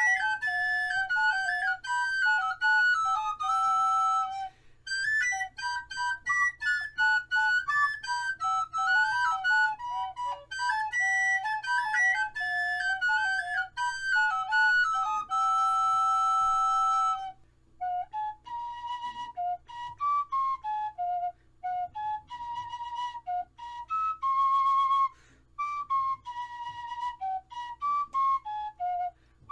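Background music: a lone wind-instrument melody, with a long held note about halfway through and a steady low hum underneath.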